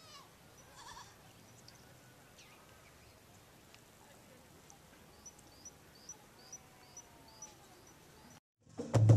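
Faint outdoor ambience with a brief animal call about a second in and a run of about six short, high chirps evenly spaced a few seconds later. After a moment of silence, music with a percussive beat starts right at the end.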